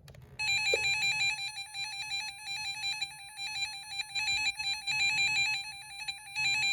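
Radio Shack 12-250 weather radio's built-in alert siren sounding in test mode: a steady electronic warbling tone that flips rapidly between two pitches, starting about half a second in.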